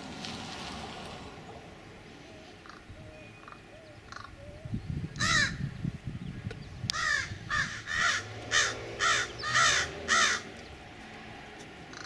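American crow cawing: a single loud caw about five seconds in, then a run of about seven caws in quick succession, roughly two a second. A few faint, soft calls come before them.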